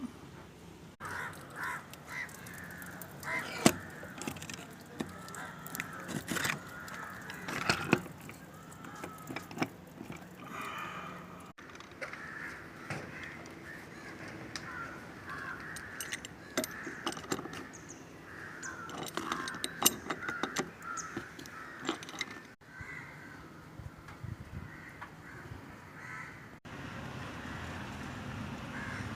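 Crows cawing repeatedly, mixed with many sharp clicks and knocks, with the sound breaking off abruptly at a few points.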